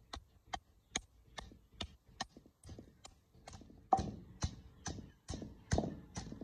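Garlic being pounded in a mortar with a pestle: steady strikes about two or three a second, growing louder about two-thirds of the way through.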